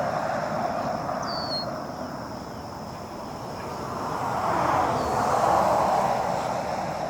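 Road traffic going by: the rush of one vehicle fading away, then another swelling up and passing about five seconds in. A single short bird chirp about a second in.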